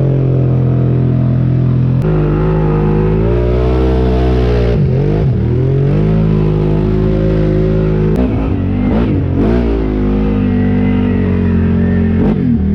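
ATV engine running and revving, its pitch rising and falling several times as the throttle is worked.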